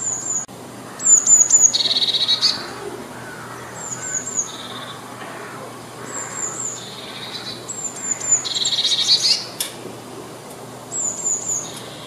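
Blue tit singing: repeated phrases of three or four thin, very high notes, most of them running into a quick lower trill, repeated every two to three seconds.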